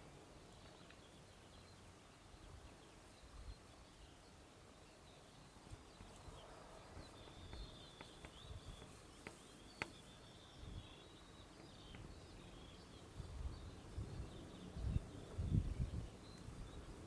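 Faint open-field ambience with distant birdsong, a thin high call trailing on for several seconds around the middle, and a few low rumbling gusts near the end that are the loudest part.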